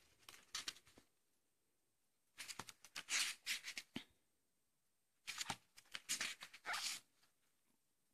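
Paper pages of a paperback book being riffled and turned by hand: three short bursts of quick rustling and flicking, a couple of seconds apart.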